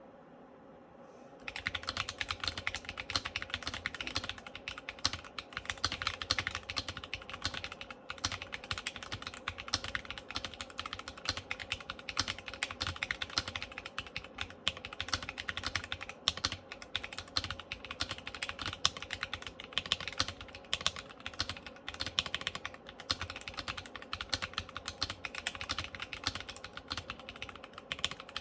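Fast, continuous typing on a Keychron Q1 mechanical keyboard with Akko Cream Yellow V3 linear switches on a steel plate, dense key clicks with spacebar strokes mixed in. The typing starts about a second and a half in.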